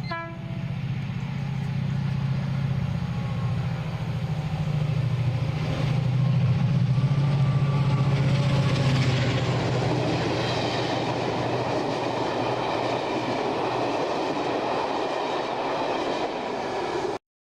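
Hornby Class 73 model locomotive running: a steady low hum with a rushing noise that grows from about halfway through, cutting off suddenly near the end.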